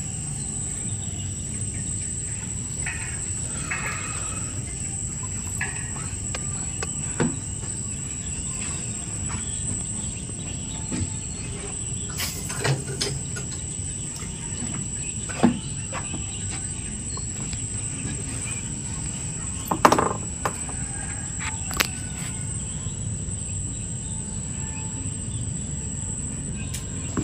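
Steady, high-pitched insect drone, typical of a tropical cricket or cicada chorus, over a low background hum. A few short knocks and clicks break in now and then, the loudest about twenty seconds in.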